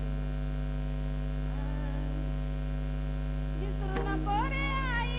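Steady electrical mains hum from the amplification, with no speech. About four seconds in, a voice starts singing a melodic line over the hum.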